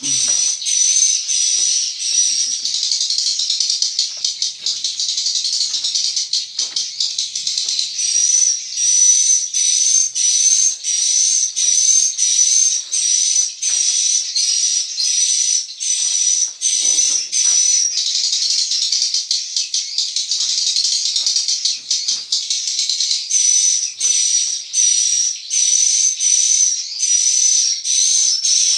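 Dense, continuous high-pitched twittering of swiftlets in a swiftlet house. A wavering chirp repeats over and over in a short, even cycle.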